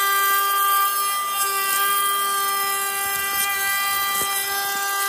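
Wood router fitted with a rabbeting bit, running steadily at full speed with a high, even whine.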